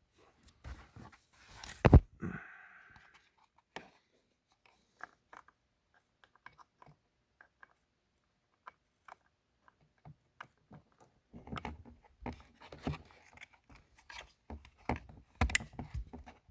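Hands fitting plastic trim switches and wiring connectors under a car's steering column: scattered plastic clicks, taps and rustling, with one loud knock about two seconds in and a busier run of clicks and handling noises near the end.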